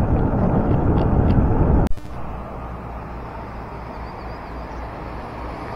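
Wind buffeting the microphone while riding, loud and irregular. It breaks off abruptly with a click about two seconds in, and a quieter steady noise with a low hum follows.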